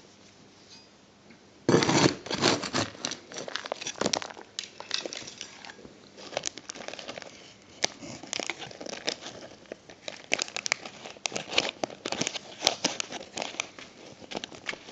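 Rustling, crinkling and light clicking of model-railway scenery material being handled and gathered into a pot. It starts about two seconds in and goes on in quick, irregular bursts.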